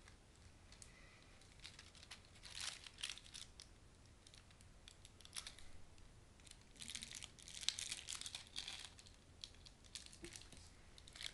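Faint rustling and crinkling from a kitten playing on the floor, in short scratchy spells: one about two and a half seconds in and a longer one from about seven to nine seconds, with a few single light clicks between.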